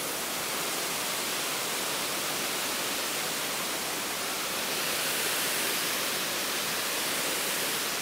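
Waterfall rushing steadily: an even hiss of falling water with little low end, no pitch or rhythm, growing slightly louder in the second half.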